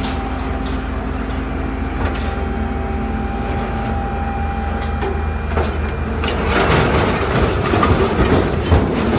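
A vehicle's engine running steadily with a low hum. About six seconds in, a loud rattling clatter of many quick knocks joins it.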